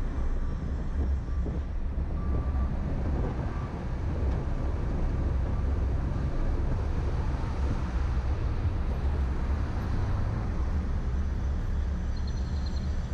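Steady low rumble of a car driving through city streets: road, engine and wind noise.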